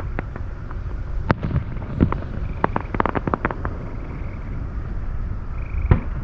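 Fireworks bursting at a distance: a string of sharp cracks, the loudest about a second in, a rapid cluster in the middle and one more near the end. Under them runs a steady low rumble of wind on the microphone.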